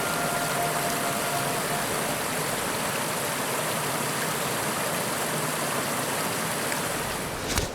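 Small waterfall and stream: steady rushing water, with one sharp knock near the end.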